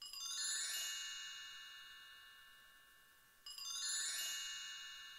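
High, bell-like chime tones ringing out twice, each time opening with a quick shimmering flourish and dying away over about two seconds; the second begins about three and a half seconds in.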